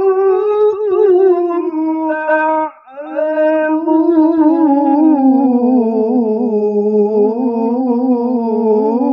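Male qari reciting the Quran in melodic tilawah style into a handheld microphone. He holds long, ornamented notes that waver up and down, with a short breath break about three seconds in.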